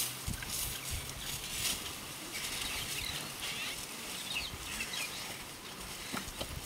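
Outdoor ambience: faint bird chirps over light rustling, with a low steady hum that fades out about three seconds in.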